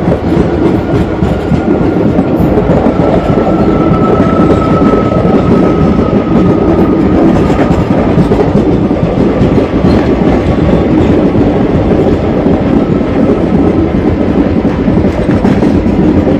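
Express train made up of ICF passenger coaches running at speed: a loud, steady running noise of the wheels on the rails.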